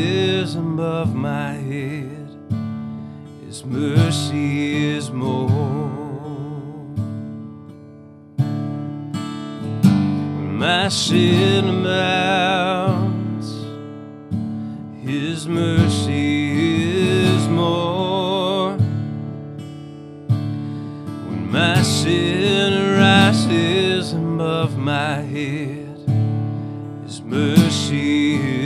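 A man singing a slow worship song, accompanying himself on a strummed acoustic guitar, in phrases with short breaks between them.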